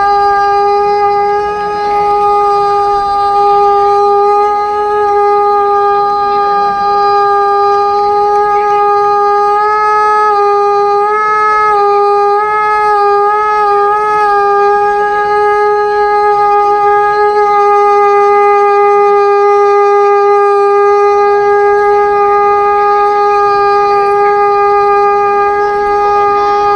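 Conch shell (shankh) blown in one long steady note, with a few small wavers in pitch about halfway through.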